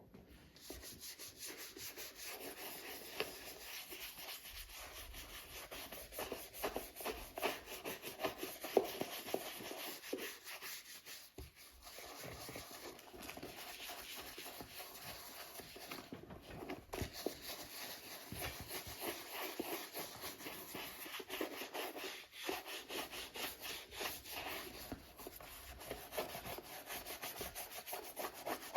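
Continuous abrasive rubbing, like sanding or brushing, with a fast scratchy texture that pauses briefly a few times.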